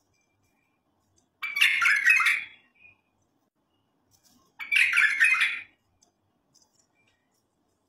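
White-eared (white-cheeked) bulbul singing: two short song phrases of quick notes, each about a second long, about three seconds apart.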